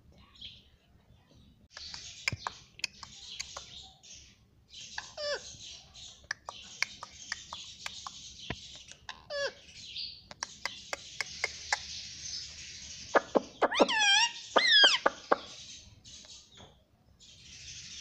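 Indian ringneck parakeet chattering softly to its reflection in a phone screen, with many sharp beak clicks on the glass. About two-thirds of the way through it gives a few loud squawks that slide up and down in pitch.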